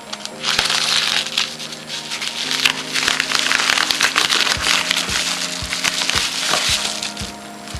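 A padded paper mailer being torn open, its paper crinkling and ripping, over background music. The tearing starts just after the beginning and dies away near the end.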